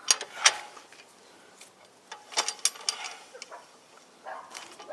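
A handful of sharp metallic clicks and knocks from hand tools being handled, in small clusters near the start, about halfway, and near the end.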